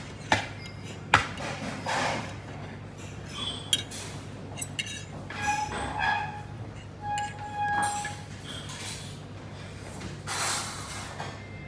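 A metal fork clinking against a china plate, with two sharp clinks in the first second and a half and lighter clicks after, over the hum of a restaurant dining room. Two short, faint held tones sound near the middle.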